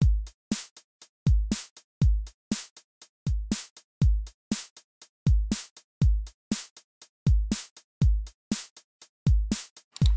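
Background music: an electronic drum-machine beat of deep kick drums and short sharp ticks in a steady repeating pattern, with no melody.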